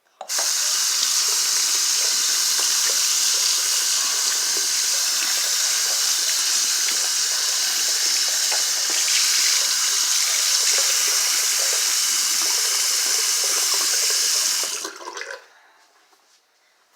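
Water running steadily from a tap into a sink, turned on suddenly and shut off about fifteen seconds later.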